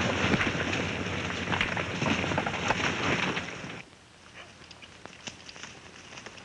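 Horses galloping: a dense, noisy clatter of many hoofbeats that cuts off abruptly about four seconds in, leaving a much quieter stretch of scattered faint hoof thuds from a single horse.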